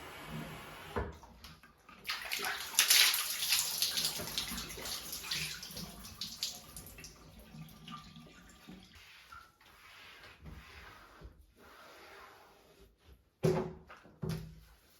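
Water running and splashing in a bathtub, louder for a few seconds soon after the start and then fading away, followed by two knocks near the end.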